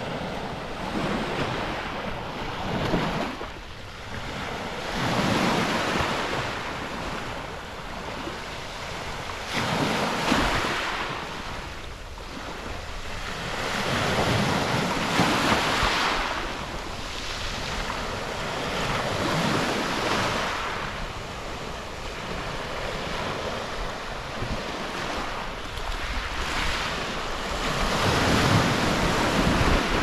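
Small sea waves breaking and washing up a pebble beach, the rush of surf swelling and falling back every four to five seconds. Wind buffets the microphone, adding a low rumble that is strongest near the end.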